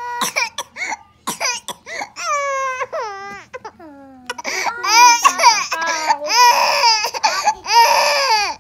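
Baby crying in repeated wails that rise and fall, with short catches of breath between them, after being startled by a balloon bursting.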